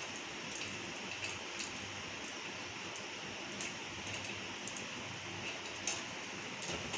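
Steady hiss of background room noise with a few scattered light clicks and ticks at irregular intervals.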